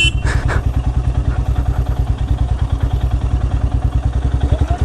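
Royal Enfield Himalayan's single-cylinder engine running at low, steady revs with an even, fast pulsing beat, with some clatter from the bike on rough trail.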